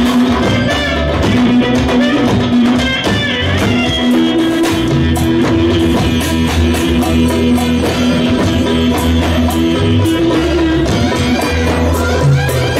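Music with guitar and drums playing at a steady loud level.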